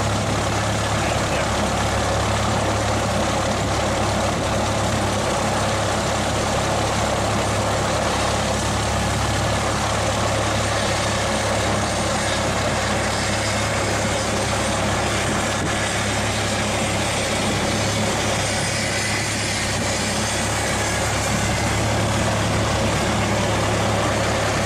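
Inside the cabin of a single-engine Cessna propeller plane, its piston engine running steadily at low taxi power with the propeller turning, heard as an even low hum under a noise haze.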